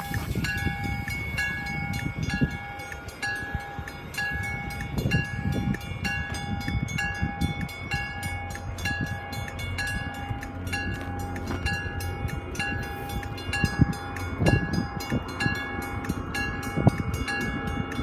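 MBTA commuter rail coaches rolling past over a grade crossing, steel wheels rumbling with irregular clacks over the rail joints, a few louder near the end. Under it the crossing's warning bell rings steadily, a short ding repeating a little faster than once a second.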